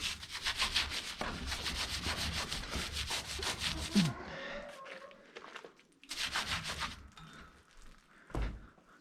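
Rapid, rhythmic scrubbing or rubbing strokes, about four a second, stopping about four seconds in and returning briefly about six seconds in.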